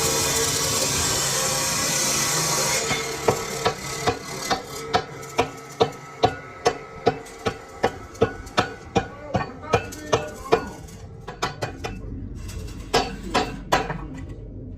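A loud hiss for the first few seconds, then a hammer striking metal in a steady run of about two to three blows a second, each blow ringing briefly. After a short pause, a few more blows come near the end.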